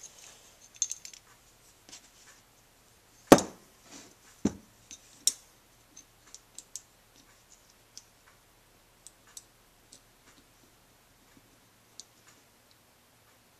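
Small clicks and taps of carburetor parts and pliers being handled while the choke and its spring are fitted back into a small motorcycle carburetor. Two sharper knocks come about three and four and a half seconds in.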